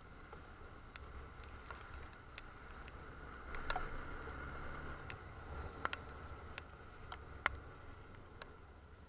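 Motorcycle riding in the rain: a steady low engine and wind rumble with a thin high whine over it, and sharp ticks a little more than once a second.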